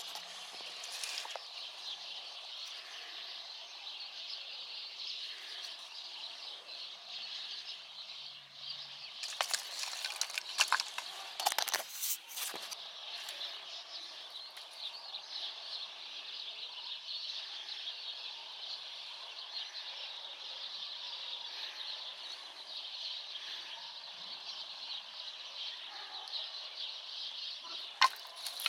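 Cut branch sticks knocking and clacking together as they are handled in the pile: a cluster of sharp knocks about ten to twelve seconds in and another near the end. Behind them runs a steady, high-pitched outdoor chirring.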